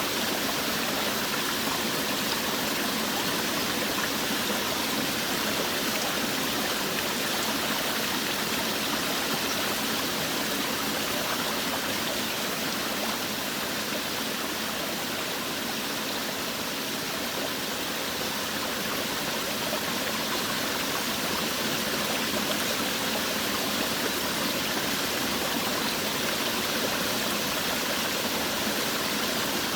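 Forest waterfall: water falling and rushing steadily over rocks, an even unbroken rush.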